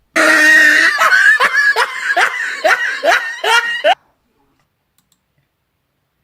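Loud, high-pitched laughter: a quick run of rising "ha" bursts, about two or three a second, that cuts off abruptly about four seconds in.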